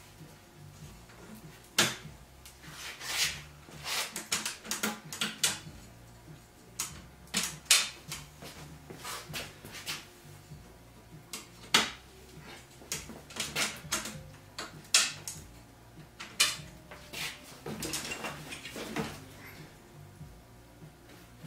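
Irregular clicks, knocks and rattles of a paramotor's cage hoop and spar sections being fitted together by hand, a few strikes loud and briefly ringing.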